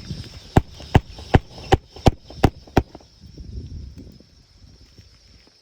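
A run of about eight sharp knocks, evenly spaced at a little over two a second, stopping about three seconds in and followed by fainter rustling, over a faint steady high-pitched hum.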